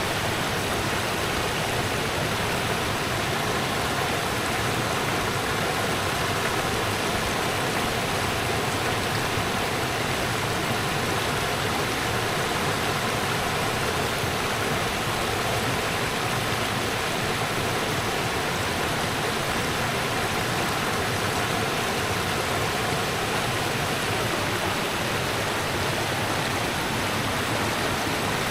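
Rushing river water, a steady even rush with no change in level.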